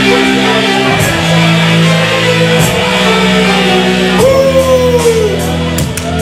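Wrestler's entrance music: a song with a singing voice over held instrument chords.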